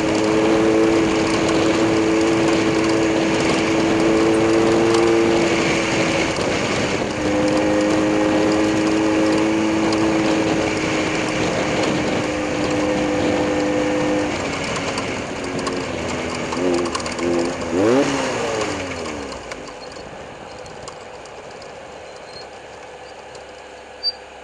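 Racing engines running at high, steady speed, with short breaks in the tone. About two-thirds of the way in, one passes close with its pitch dropping sharply, and then the engine sound fades away.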